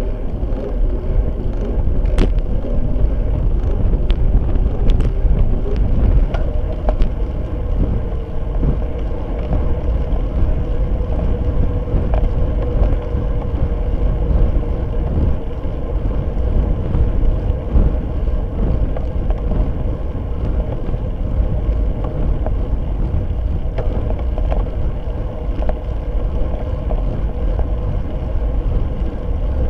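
Wind rushing over a bicycle-mounted camera's microphone with road and tyre rumble as the bike rides at speed, a faint steady hum underneath. A few light rattles or clicks come between about two and seven seconds in.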